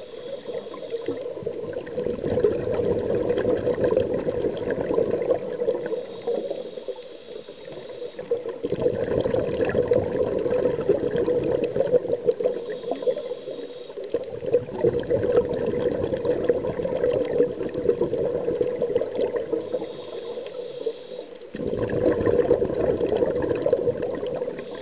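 Scuba regulator breathing underwater: a short hissing inhale through the regulator, then a long rush of exhaust bubbles, repeating about every six seconds, four breaths in all.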